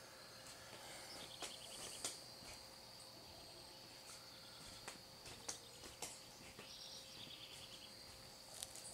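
Faint, steady high-pitched insect trill in the background, broken by short chirping pulse trains twice, with scattered faint clicks.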